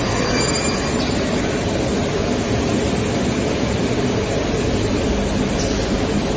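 CNC woodworking milling machine running steadily, a continuous loud machine noise.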